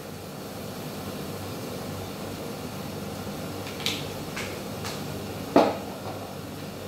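Kitchen handling sounds over a steady background hiss: a few light clicks around four seconds in, then one sharp knock about five and a half seconds in, as spice containers are handled and set down during cooking.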